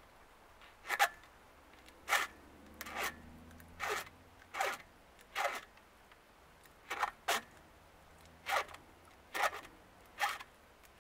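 A file scraping across the cutter teeth of a chainsaw chain in short single forward strokes, about eleven of them, roughly one a second, with a brief pause about halfway through.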